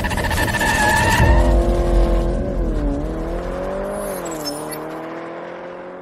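Channel-intro sound effect of a car engine: a loud rushing burst for the first second, then a steady engine note that dips and rises in pitch a couple of times and fades away.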